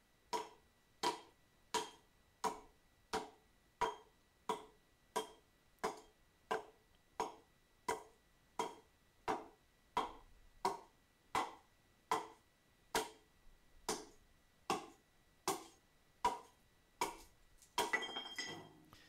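Old, rusty, unsharpened hatchet chopping over and over into the side of a standing log: a steady run of about 25 dull strikes, one roughly every 0.7 s. The blade is blunt, so it barely bites into the wood.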